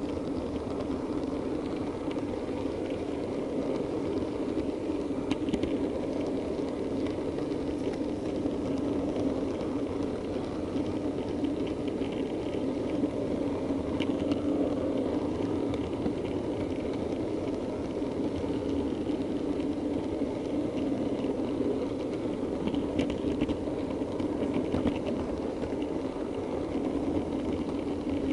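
Model diesel multiple unit running along the layout's track, heard from on board: a steady rumble with a few faint clicks as the wheels pass rail joints and pointwork.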